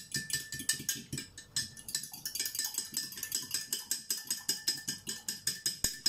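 Raw eggs being beaten with a fork in a small clear cup: a rapid, steady tapping of the fork against the cup, several strokes a second.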